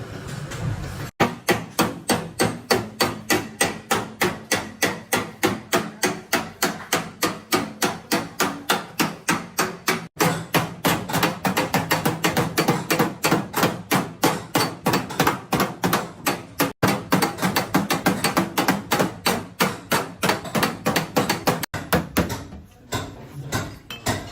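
Panel-beating hammer striking a car's sheet-metal body panel in rapid, even blows, about four to five a second, beating out accident damage. The blows break off abruptly a few times.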